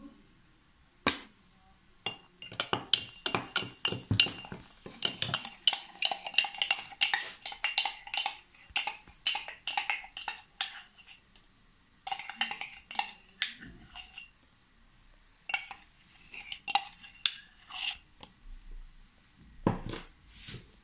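A metal spoon clinking quickly and repeatedly against a drinking glass, stirring baking soda slaked with white wine vinegar, with a ringing glassy tone. One clink about a second in, a long fast run of clinks, then shorter runs after a brief pause, and a couple of duller knocks near the end.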